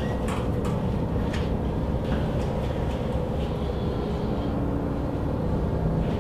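A low, steady rumbling drone with a few faint clicks over it.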